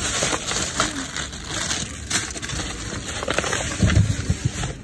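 Black plastic garbage bags rustling and crinkling as they are pulled about and rummaged through, with a few dull thumps about four seconds in.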